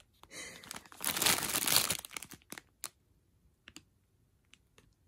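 Clear plastic bags of resin diamond-painting drills crinkling as they are handled, loudest from about one to two seconds in, then a few scattered clicks.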